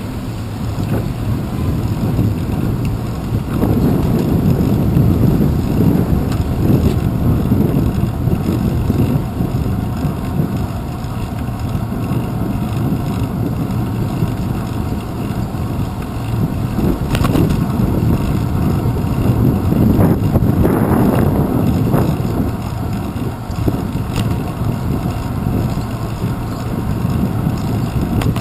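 Wind buffeting and road rumble on a handlebar-mounted GoPro Hero 2 as a bicycle rides along city streets, swelling twice, with a few sharp clicks from bumps in the road.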